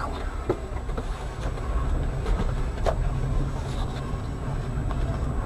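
Car interior noise while driving: a steady low rumble of engine and tyres on the road, with a few light knocks and rattles.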